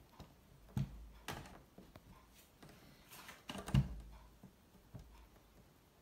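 Plastic clicks and knocks from the programme dial of a toy Hoover washing machine being turned by hand, with two louder knocks, about a second in and a little past halfway.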